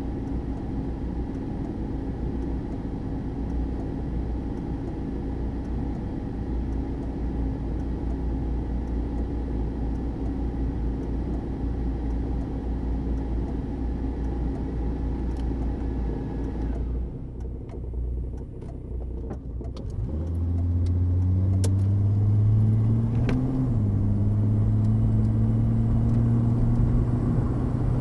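1979 Mercury Zephyr sedan running with a steady low engine sound. About seventeen seconds in it drops quieter, with a few clicks. Around twenty seconds in a louder, steady engine note comes in and holds, with a short rise and fall in pitch a few seconds later.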